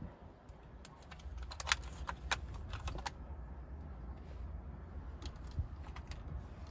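Irregular light clicks and taps of hand tools and parts being handled at the steering column, in two clusters, over a low steady hum.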